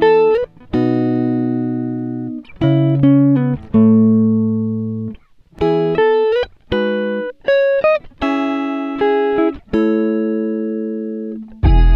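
Background music: a plucked-string melody of single notes and chords, each struck sharply and ringing out as it fades.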